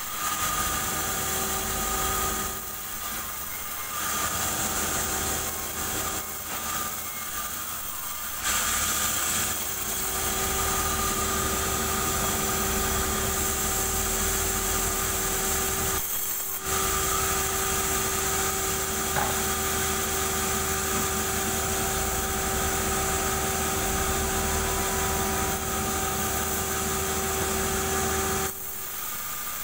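Vertical band sawmill running and cutting through a durian log: a steady machine drone with a high whine. It gets louder once the blade is in the wood and drops near the end as the cut finishes.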